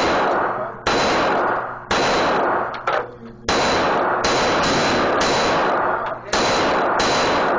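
A string of about nine pistol shots from a Glock handgun, fired roughly one a second at an uneven pace. Each crack is followed by a long echo off the indoor range's concrete.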